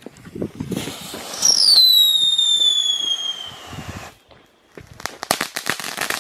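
Ground firework fountain going off: a hissing spray of sparks with a loud whistle that slowly falls in pitch for about two seconds, then after a short lull a rapid run of crackling pops near the end.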